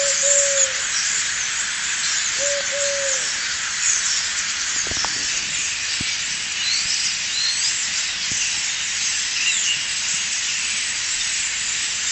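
Dawn birdsong over a steady hiss: a low hooting call, a short note then a longer one, comes twice in the first three seconds, with many small high chirps throughout.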